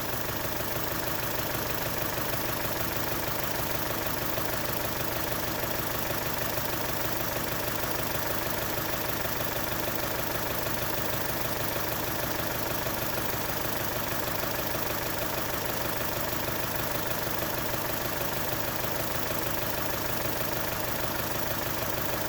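Chevrolet Cruze four-cylinder engine idling steadily, with an even rapid pulse.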